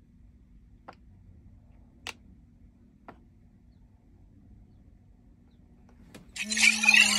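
A few faint clicks about a second apart, then about six seconds in the Flysky PL18 EV radio transmitter plays its loud power-on startup sound, a bright chiming jingle with a few held tones beneath it.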